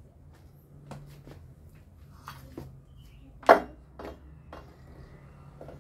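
A 15-inch speaker driver being set down and shifted into place on top of a wooden speaker box: scattered knocks, clicks and rubbing, with one louder knock about three and a half seconds in. A faint low hum runs underneath.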